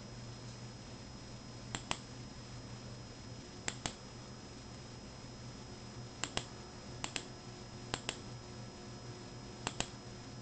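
Computer mouse clicked six times at irregular intervals, each click a sharp press-and-release pair, over a low steady hum.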